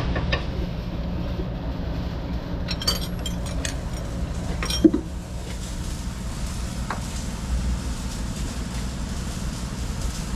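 An engine running steadily, with a few light metallic clinks about three seconds in and a single sharp knock about five seconds in.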